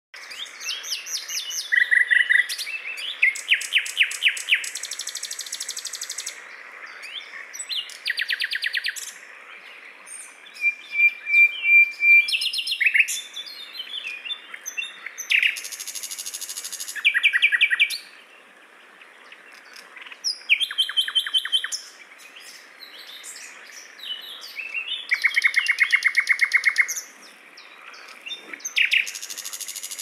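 Nightingale singing: loud phrases of rapid repeated notes and trills, each a second or two long, separated by short pauses.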